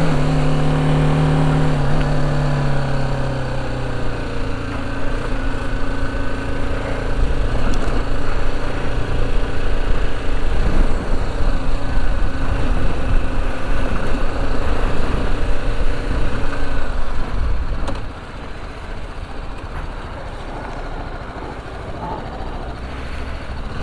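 BMW G310 GS single-cylinder engine running while the bike is ridden, with wind rushing over the microphone. The engine note sinks a little in the first seconds; the rush builds and then drops sharply about eighteen seconds in.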